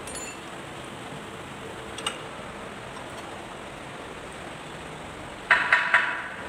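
Light metal clicks from work on a Kubota Z851 diesel's valve gear, then about five and a half seconds in a quick run of three or four loud metallic clinks with a short ring, as tools or parts knock against the engine.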